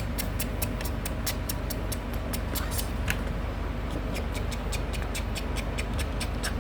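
Plastic toy knife chopping Play-Doh on a plastic toy chopping board: rapid light clicks, about five a second, with a brief lull about three seconds in.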